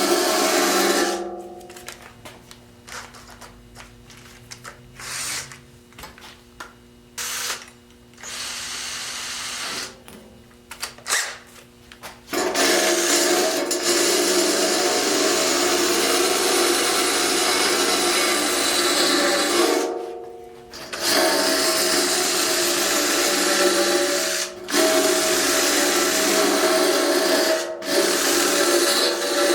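Handheld rotary power tool running against metal, taking off rust down to bare metal. It runs for about a second, drops to quieter scattered sounds for about ten seconds, then runs steadily again, stopping briefly three times.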